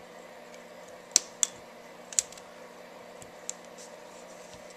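Plastic retaining clips of an HTC Droid Incredible's back housing snapping loose as a prying tool is worked around the edge: sharp clicks, three between about one and two seconds in and a fainter one at about three and a half seconds, over a faint steady hum.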